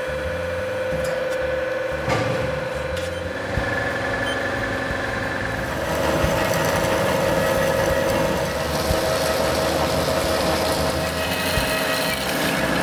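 Horizontal metal-cutting bandsaw running with a steady hum while it cuts aluminium bar stock; about six seconds in the tone rises in pitch and grows a little louder.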